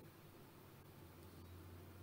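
Near silence: room tone with a low steady hum and a couple of faint ticks.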